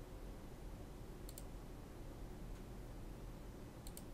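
Computer mouse clicking: two quick pairs of clicks, about a second in and again near the end, over a faint steady low hum.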